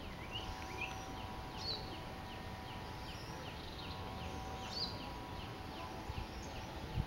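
Outdoor ambience: a short high chirp repeating evenly about twice a second, with a couple of higher calls and a faint steady hum underneath.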